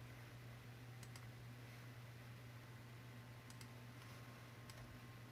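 Near silence: a steady low electrical hum with a few faint computer mouse clicks, some in quick pairs.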